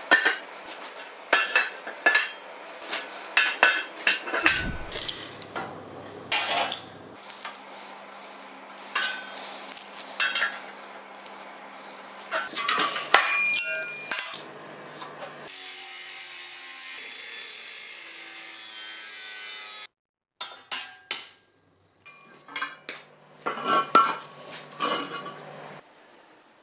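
Metalworking in a steel workshop: steel parts and hand tools clinking and knocking many times, with a steady hiss lasting a few seconds past the middle. The sound stops abruptly and restarts a couple of times near the end.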